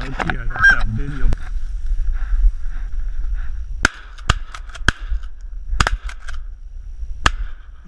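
Shotgun fired at flying geese: a quick volley of sharp blasts starting about four seconds in. There are about five loud shots and fainter ones between, the last about seven seconds in.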